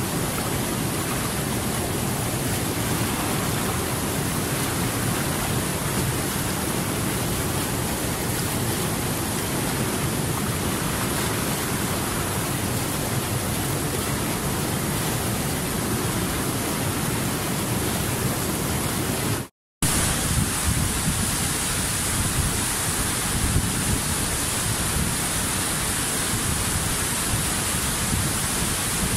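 Steady, even rushing of falling water, a dense rain- or waterfall-like noise. It cuts out completely for a split second about two-thirds of the way through, then resumes with a slightly different texture.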